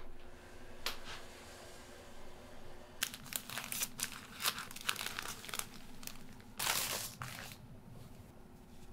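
Thin plastic drawstring bag crinkling and rustling in the hands as it is opened and a towel pulled out of it. There is a single rustle about a second in, then a busy run of crackly rustles from about three seconds in, loudest near the end.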